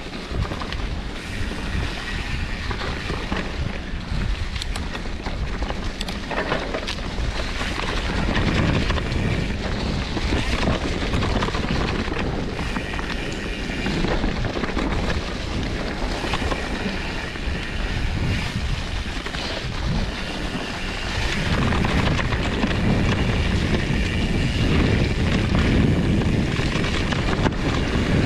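Wind buffeting the microphone while a fat-tyre mountain bike is being ridden, with rumbling tyre and trail noise underneath; it grows louder about two-thirds of the way through.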